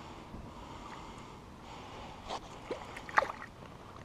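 A few short water splashes, the loudest about three seconds in, as a hooked perch is drawn to the bank and taken by hand from the water.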